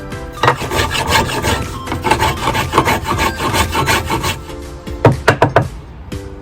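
Pieces of firewood scraping and rubbing together, with a quick run of sharp wooden knocks about five seconds in, over background music.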